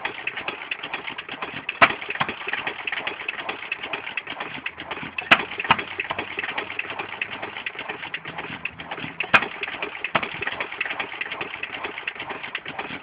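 Amanco Hired Man 2¼ hp open-crank petrol/kerosene stationary engine idling: a constant fast clatter with a sharp crack every few seconds. It is running well, with its homemade gasket holding compression.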